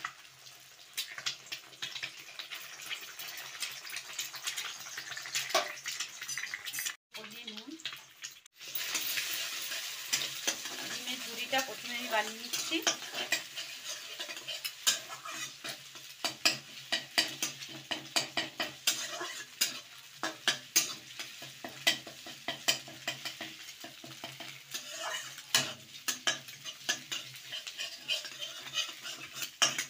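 Eggs sizzling in hot oil in a metal kadai while a metal spatula scrapes and taps against the pan, stirring and breaking them into a scramble. The sound cuts out briefly twice about a quarter of the way in.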